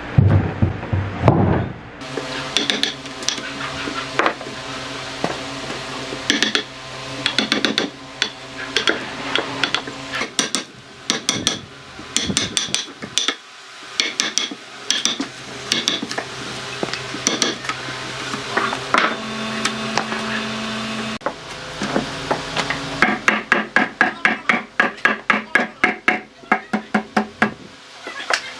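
Hammer driving a steel chisel into a log to strip its bark: repeated sharp knocks with a metallic ring, and bark cracking away. It opens with a couple of seconds of heavy wooden knocking as the log is handled on the table, and near the end the blows come fast and even, about three a second.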